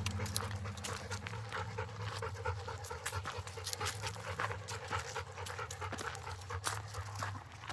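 Labrador retrievers panting, a run of short quick breaths.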